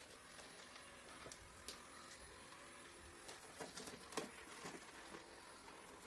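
Faint: a Neatsvor X500 robot vacuum heading back to its charging base across a laminate floor, a low steady hum with scattered light clicks and taps, most of them about three to five seconds in.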